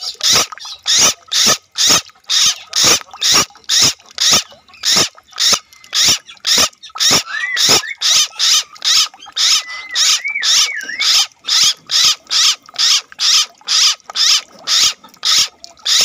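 An animal calling in a fast, regular rhythm of harsh pulses, a little over two a second, over a faint steady tone. Short whistled chirps join it twice near the middle.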